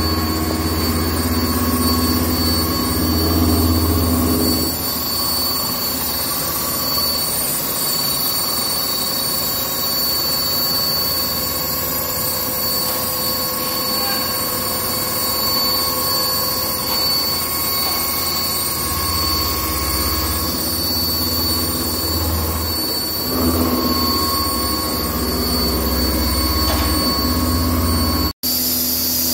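Toshiba CNC horizontal boring mill's spindle running with its cutter milling pockets in a metal part: a steady machining whine with several constant high tones over a low hum that swells and fades. The sound breaks off for an instant near the end.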